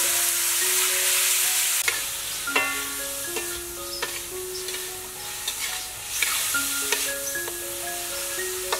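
Sliced meat sizzling as it is stir-fried in a wok, with a metal spatula scraping and clacking against the pan now and then. A soft melody of sustained notes plays over it.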